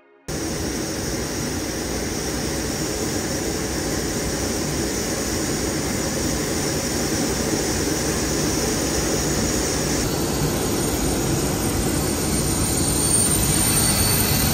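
Steady jet turbine noise, an even rush that cuts in abruptly just after the start and grows a little louder near the end.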